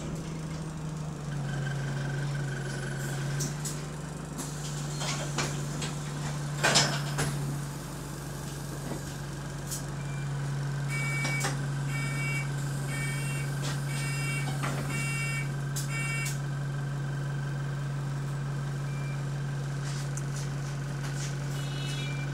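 Engine drone of a single-deck bus with a burst exhaust, heard from inside the saloon, steady at one low pitch. A sharp knock comes about seven seconds in, and from about eleven to sixteen seconds a run of about six evenly spaced electronic beeps sounds over it.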